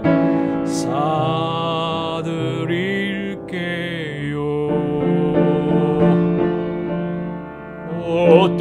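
Keyboard accompaniment playing the instrumental interlude of a children's song between sung verses, with no singing.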